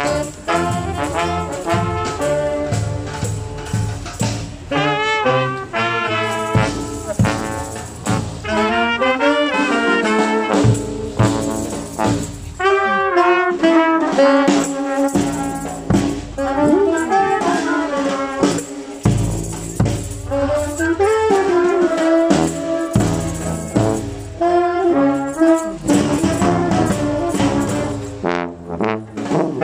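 Brass band playing at close range, a trombone among the horns, with percussion keeping a steady beat.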